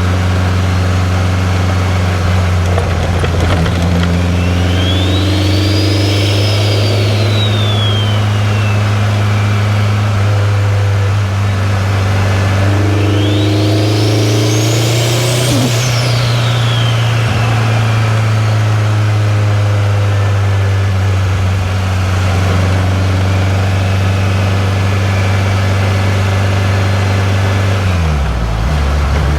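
2003 Subaru WRX's turbocharged flat-four engine pulling steadily on the road, with a high whine that rises and falls twice. Near the end the engine note drops quickly as the revs fall.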